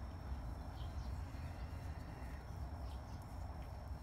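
Outdoor background: a steady low rumble, a faint steady high whine, and a few faint bird chirps now and then.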